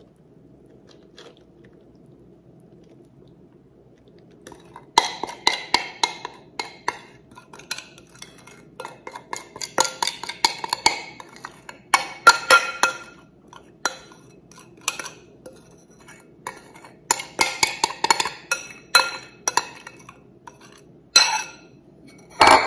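Metal spoon scraping and clinking against the inside of a bowl as a butter-and-seasoning mixture is scraped out over pretzels. The bowl is quiet at first, then gives repeated irregular clinks and scrapes from about five seconds in.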